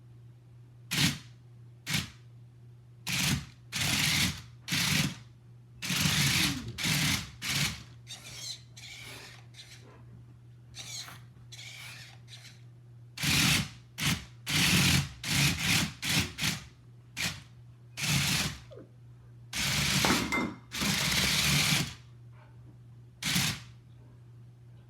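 WowWee CHiP robot dog's drive motors whirring in a run of short, irregular bursts as it moves about.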